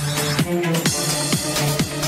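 Electronic dance music with a steady kick drum at about two beats a second over a sustained bass line; a hissing wash brightens over the top about halfway through.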